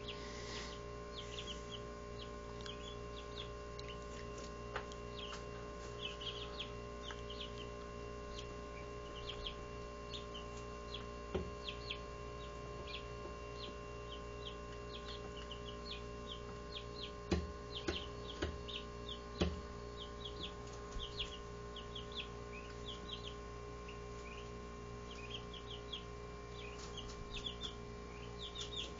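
Barred Rock chicks, 17 days old, peeping in many short high chirps over a steady electrical hum. A few sharp knocks come around the middle.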